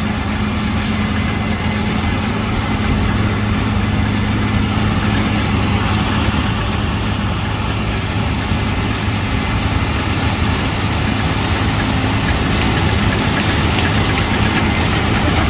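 Combine harvester cutting wheat as it drives toward the listener, its diesel engine running with a steady drone that grows slightly louder as it approaches.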